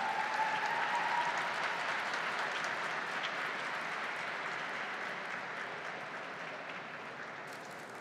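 Audience applauding, loudest in the first second or two and then slowly dying away.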